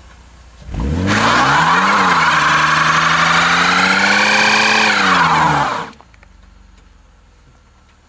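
Mercedes-Benz W124 320 coupe doing a burnout: its 3.2-litre straight-six revs up about a second in and is held high and steady while the spinning rear tyres squeal loudly. Near six seconds in the revs drop and the sound cuts off.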